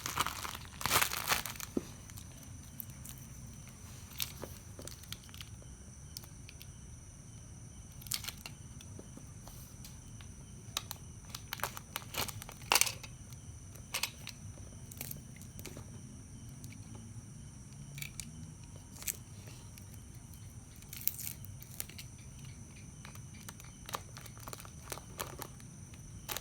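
Plastic packaging being handled and pulled apart, in short bursts of crinkling and tearing: a busy burst at the start, then scattered single crackles.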